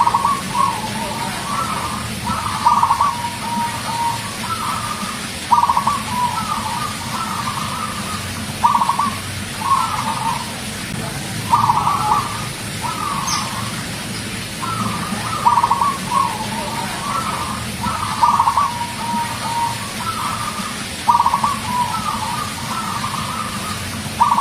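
Zebra dove (perkutut) cooing: repeated phrases of quick, soft notes, one phrase every second or two.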